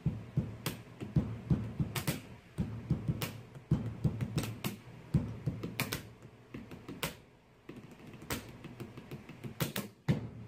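Pencil tapping: two pencils rapidly tapped and flicked on a wooden tabletop in a fast, uneven drum-like beat of sharp clicks and dull knocks, thinning out briefly about three quarters of the way through.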